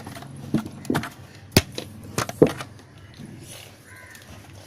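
Several sharp knocks and taps, irregularly spaced over the first two and a half seconds, followed by a quieter stretch.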